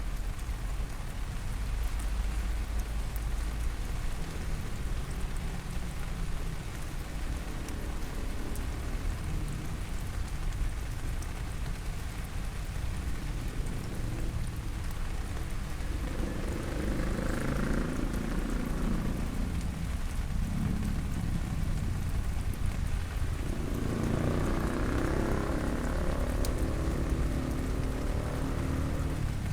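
Steady rain falling on surfaces. The sound fills out twice in the second half.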